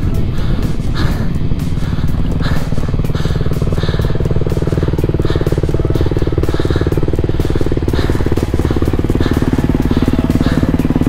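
Single-cylinder four-stroke engine of a 2020 Honda CRF250RX dirt bike running steadily under the rider.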